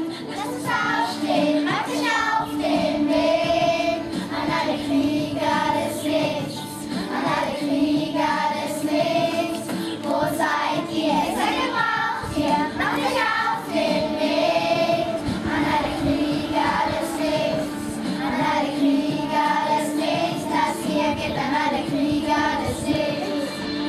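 A group of primary-school children singing a song together.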